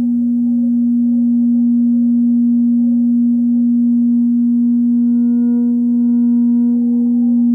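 Sustained drone from an experimental ambient piece: one strong held low tone with fainter steady tones above it. A cluster of higher tones comes in about three seconds in and drops out near the end.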